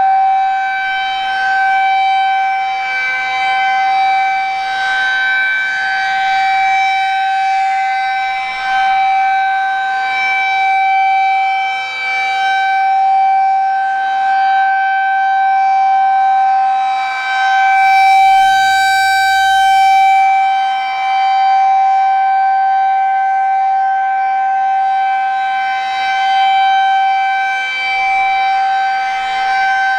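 Federal Signal 2001-SRN electromechanical warning siren sounding a loud, steady single tone on its monthly test. Its level swells and dips gently as the rotating horn sweeps round.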